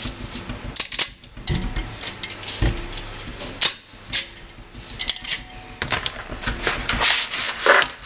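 Dry spaghetti being snapped by hand, an irregular run of sharp cracks and clicks, with the broken pieces dropping into a stainless steel pot and two dull knocks around two seconds in.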